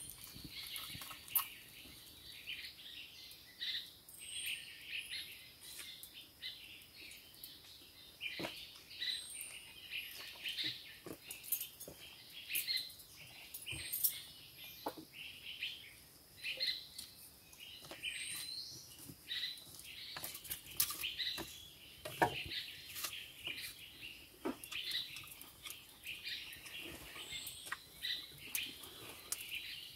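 Forest birds chirping and calling, over a faint steady high tone, with scattered small clicks and knocks.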